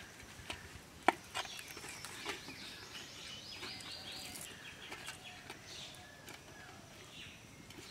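Birds chirping, among them a quick run of high chirps in the middle. A few sharp clicks come from raw fish pieces being handled against a steel plate, the loudest about a second in.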